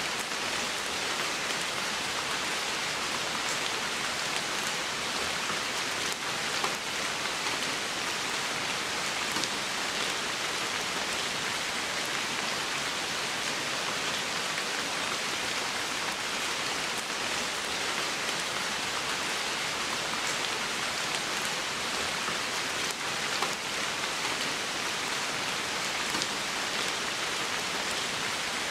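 Steady rain falling on wet leaves and moss, with a few louder single drops now and then.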